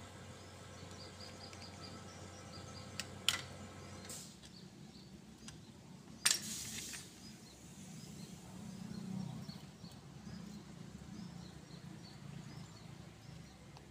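Occasional metal clinks of a hand tool working on a truck gearbox casing during disassembly: a sharp clink a few seconds in and a louder hit with a short scrape near the middle. Birds chirp throughout, and a low steady hum stops about a third of the way in.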